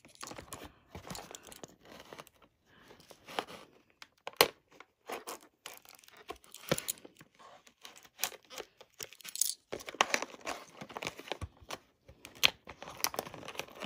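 Clear plastic tape being peeled and torn off a cardboard toy box, giving irregular scratchy tearing and crinkling with small sharp clicks from handling the box.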